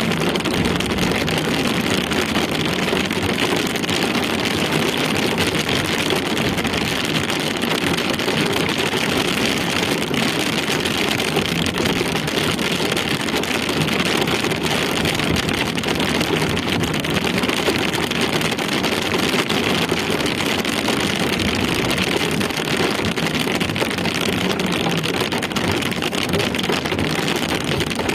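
Rain falling steadily, a dense even hiss without a break.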